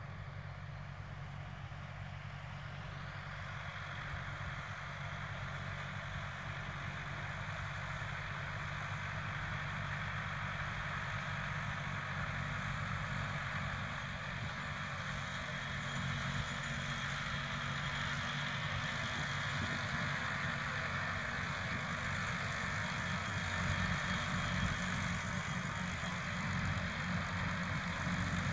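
John Deere 6110M tractor's diesel engine running steadily under load, pulling a trailed field sprayer, with a steady hiss above it. It grows gradually louder as the tractor draws nearer.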